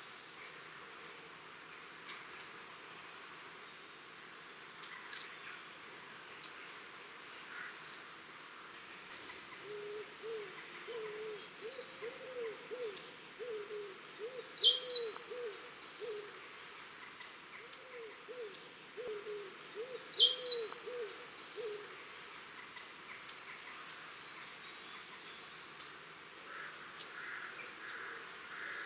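Long-tailed tits calling: many thin, very high, short calls scattered throughout, with two louder, lower calls near the middle. Underneath them, another bird gives two runs of low, repeated, rounded notes, the first about a third of the way in and the second a little past halfway.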